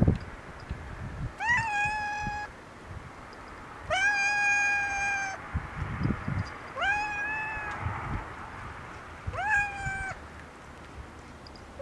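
Domestic cat meowing four times: long calls of about a second each, every one rising quickly and then held at a steady pitch, a couple of seconds apart.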